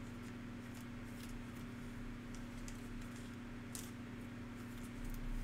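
Trading cards being handled and flipped through: scattered soft clicks and rustles of card stock sliding against card stock, over a steady low hum.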